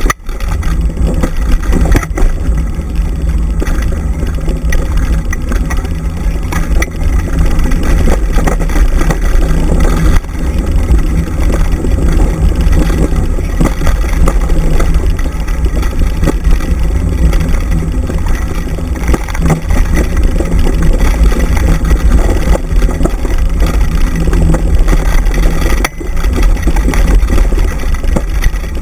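Steady, loud rumble of a dryland mushing rig rolling fast over a dirt forest trail behind a pulling dog, with wind buffeting the mounted microphone. The noise briefly drops just after the start and again near the end.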